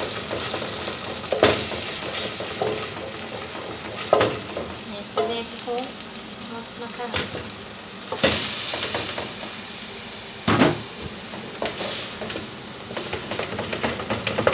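Tomato paste and seasoning frying with a steady sizzle in an aluminium pot as it is stirred with a wooden spoon, with a few knocks of the spoon against the pot. About eight seconds in, a louder surge of sizzling and clatter comes as cooked pasta is tipped in from a colander.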